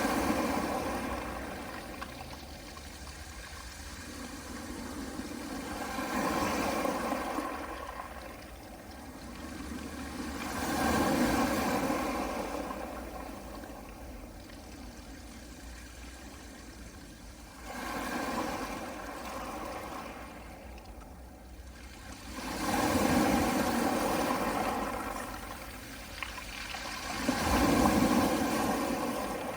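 Small sea waves washing onto a pebble beach. The wash swells and fades about every five to six seconds, six times.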